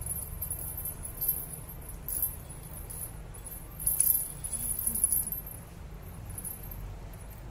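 A small bell on a cat's collar jingling in short bursts as the cat bats and leaps at a toy, loudest about four seconds in.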